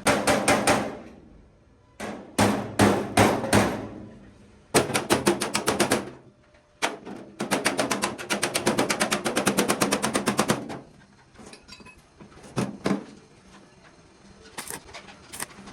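Rapid, evenly spaced hammering strikes in several bursts, the longest lasting about four seconds past the middle, at roughly eight to ten blows a second.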